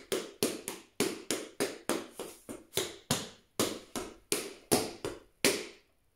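Tap shoes striking a hard floor in a tap-dance step combination: a quick, rhythmic run of sharp metal taps, about three or four a second, that stops about five and a half seconds in.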